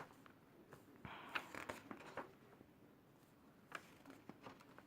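Faint rustling and light scraping of paper as the pages of a large paperback colouring book are handled and turned, in short scattered bits, with near silence between.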